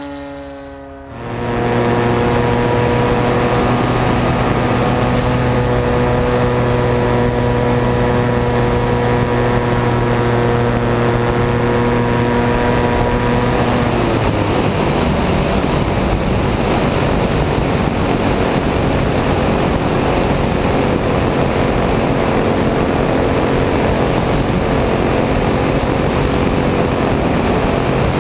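Petrol engine and propeller of a Piper L-4 Grasshopper model plane running at steady high throttle, heard close up from the airframe. About fourteen seconds in, the steady tone turns lower and rougher, with more rushing air noise.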